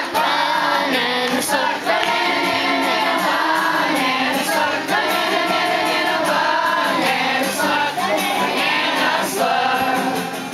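A group of voices singing a song together in chorus.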